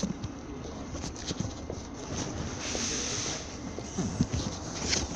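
Footsteps on a railway station platform, irregular knocks and scuffs, with a brief hiss about three seconds in.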